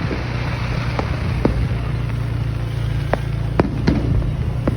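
Distant fireworks going off irregularly: about six sharp bangs and crackles, spread unevenly, over a steady low rumble.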